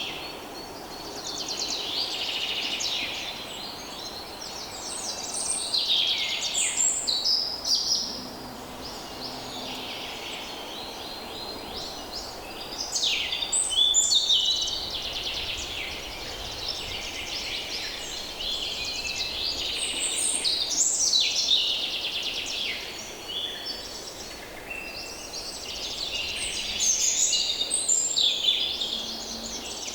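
Several wild songbirds singing and calling together in a woodland chorus, with loud phrases coming in clusters every few seconds.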